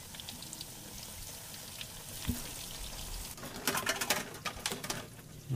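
Sliced bananas deep-frying in hot oil in a wok, a steady faint sizzle. About three and a half seconds in, a burst of rapid clattering and rattling lasts for a second or so.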